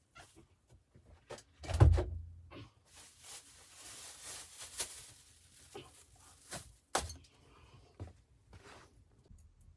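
Objects being handled: a heavy thump about two seconds in, then a few seconds of rustling or scraping, and several sharper knocks and clicks.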